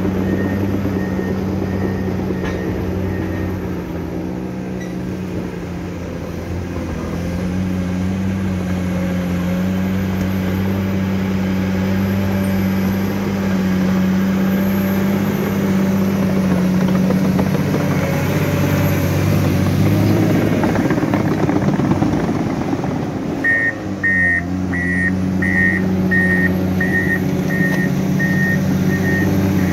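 Komatsu D61 crawler bulldozer's diesel engine running steadily under load as it pushes soil with its blade. Around two-thirds of the way in the engine note shifts, then its reversing alarm beeps steadily, about two beeps a second, as it backs up.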